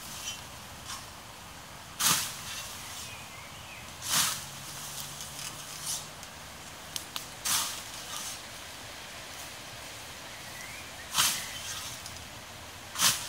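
Scythe mowing tall grass: a sharp swish as the blade cuts with each stroke, five strokes two to four seconds apart.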